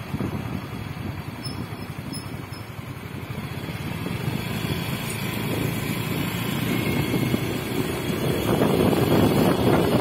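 Motor scooter running while riding, with wind rushing on the microphone; the noise grows louder over the last couple of seconds.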